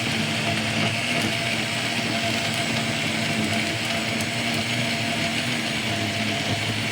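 Electric blender running steadily, blending fruit and milk into a smoothie.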